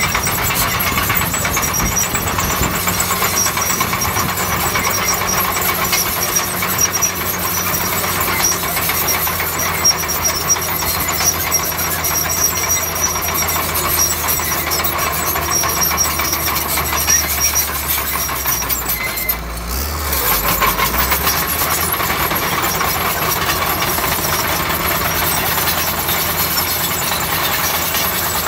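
Shantui bulldozer's diesel engine running steadily under work, with a constant rattle of clicks over it. The engine note dips briefly about two-thirds of the way through, then picks up again.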